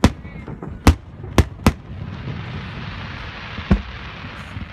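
Aerial fireworks shells bursting: four sharp bangs in the first two seconds and another near four seconds in, with a steady hiss under them from about two seconds in.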